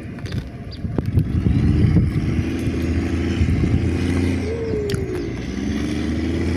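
A motor vehicle engine running steadily, its pitch dropping briefly about four and a half seconds in.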